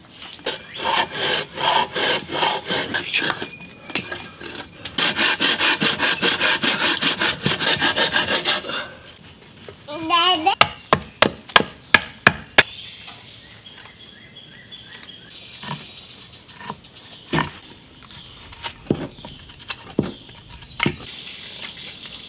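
Hand tools working a block of pine. First come two runs of fast, even scraping strokes on the wood. Then a quick string of sharp hatchet chops, about three a second, and after that scattered lighter knocks and cuts.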